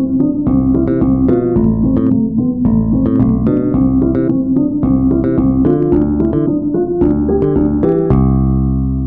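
Instrumental background music, a run of notes struck in quick succession, settling about eight seconds in on a held chord that rings on and slowly fades.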